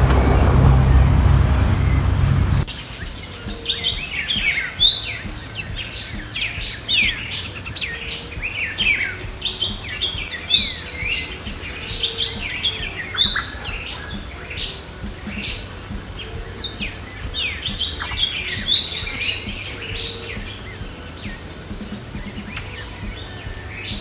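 Many small birds chirping, a busy chorus of short, high, rising and falling calls that overlap. For the first two and a half seconds a loud low rumble covers them, then it cuts off abruptly.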